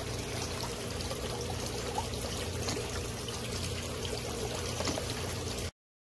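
A thin stream of water falling into a fish pond, steady trickling and splashing that cuts off abruptly near the end.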